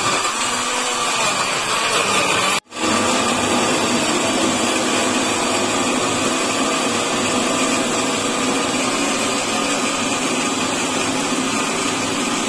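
Countertop electric blender running steadily at full speed, puréeing red chilies, shallots, garlic and tomatoes with water into a wet chili paste. The motor noise breaks off for an instant about two and a half seconds in, then runs on evenly.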